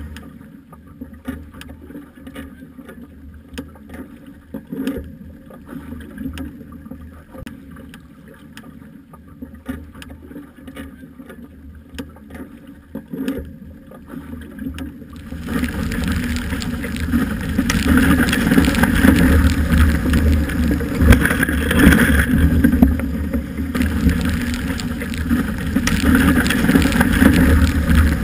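Wind buffeting the camera microphone and water rushing and splashing past a Hobie 21 catamaran sailing fast. It comes in suddenly and loud about halfway in, after a stretch of faint low rumble with scattered clicks.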